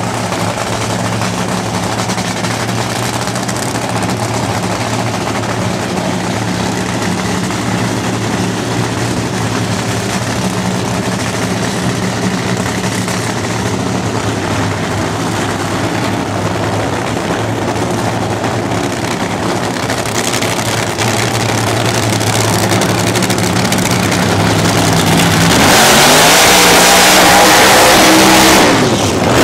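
Supercharged nitro funny car engines idling with a steady, even note. About 25 seconds in, it turns much louder and harsher as a car does a burnout, the engine note rising, then briefly drops out just before the end.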